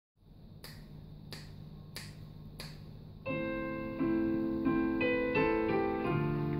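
Korg arranger keyboard: four evenly spaced clicks count in the beat, then about three seconds in an electric-piano sound begins playing chords over a bass line, a pop-style accompaniment.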